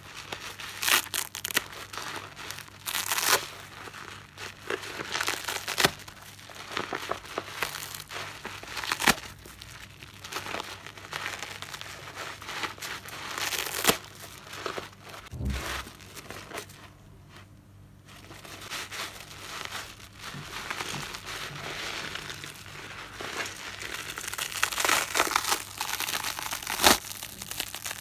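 Soap-lathered car sponge being squeezed and torn apart by hand: wet, crackling tearing with many small sharp crackles. It eases off briefly about two-thirds of the way through, then grows busier and louder near the end.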